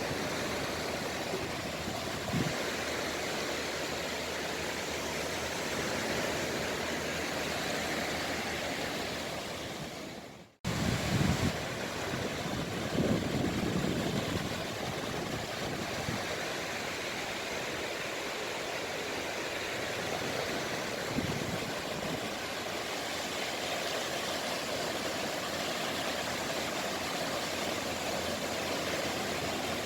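Sea waves washing on the shore in a steady, even wash, with a brief fade-out and return about a third of the way in and some low rumbles just after it.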